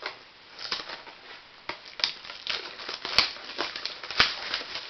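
Trading card box packaging being opened by hand: crinkling wrapper and cardboard handling, with two sharp snaps about three and four seconds in.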